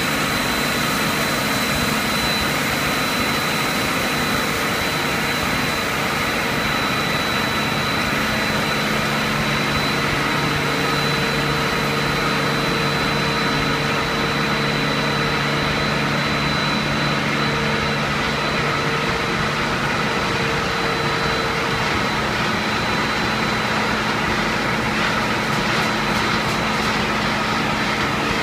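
HDPE raffia tape stretching line running: a steady machinery drone from its motors and rollers, with a constant high whine and a low hum.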